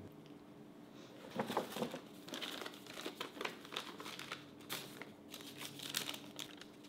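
Paper crinkling and rustling in irregular bursts, starting about a second in, as a large paper shopping bag is unpacked and a sheet of paper inside it is handled.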